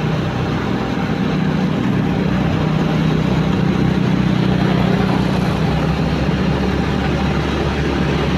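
Motorcycle engine running steadily at cruising speed while riding, over a continuous rush of wind and road noise.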